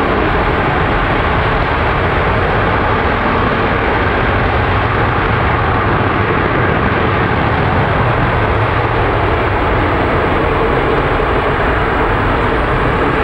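LE-9 liquid-hydrogen/liquid-oxygen rocket engine firing steadily during a ground test: a loud, even noise with no breaks.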